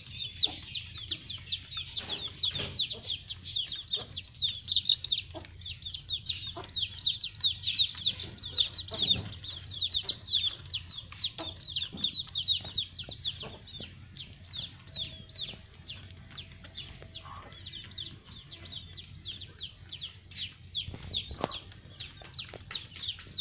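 Young peafowl peeping steadily, a fast run of short, high, falling chirps about three a second, with light taps of beaks pecking on the concrete floor.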